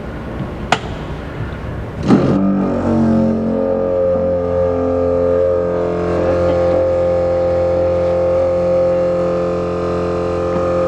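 A switch click, then about two seconds in the coolant-exchange machine's pump starts, its pitch rising briefly before it settles into a steady electric hum as it pushes prep fluid through the car's cooling system to flush out the water.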